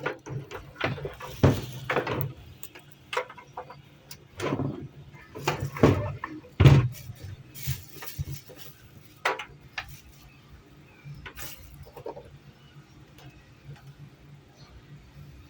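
Irregular knocks and clattering of hard objects being handled, busiest in the first half and thinning out later, over a steady low hum.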